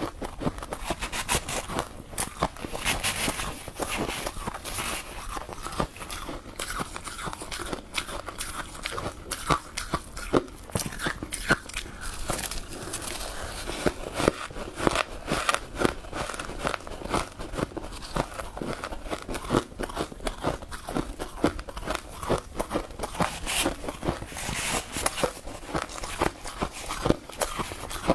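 Close-miked biting and chewing of powdery freezer-frost ice, a continuous run of dense, crackly crunches.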